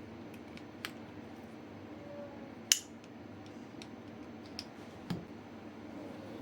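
Mosin-Nagant rifle parts being handled: a few sharp separate metal clicks and knocks, the loudest a bit under three seconds in, over a steady low hum.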